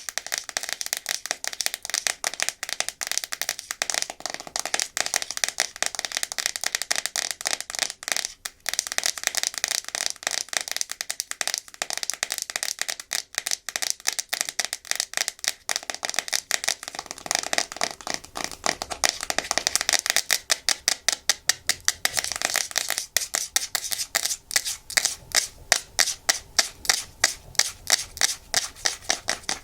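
Fingernails tapping and scratching fast on a hard plastic surface: a dense run of clicks with a brief break about eight seconds in, giving way in the second half to more separate, evenly spaced taps.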